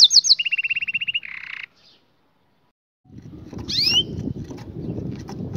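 Canary song: fast, evenly repeated trills (rolls), first high and then a lower trill, ending in a buzzy note about a second and a half in. The sound then cuts to silence. After that comes a low outdoor rumble with one quick rising chirp.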